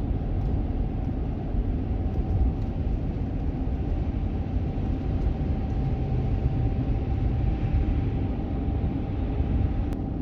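A van driving: a steady low rumble of engine and road noise, with a faint steady whine above it.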